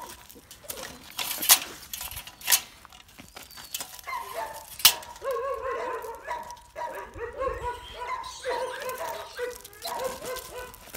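Bull terrier puppies whining and yipping in many short, wavering calls that go on from about four seconds in to the end. Before the calls start there are three sharp clicks.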